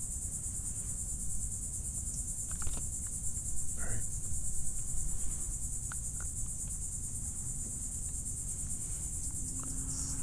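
Steady, unbroken high-pitched chorus of insects, with a few faint knocks and rustles scattered through it.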